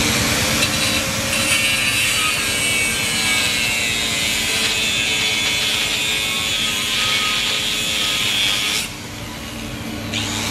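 Handheld angle grinder cutting into a steel exhaust pipe at a muffler, a steady high, hissing metal-cutting sound that stops briefly near the end.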